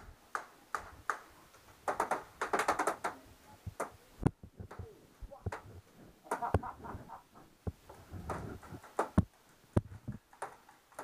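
Paintball markers firing, heard from inside a wooden bunker: scattered single shots and several quick strings of shots, about two, six and eight seconds in.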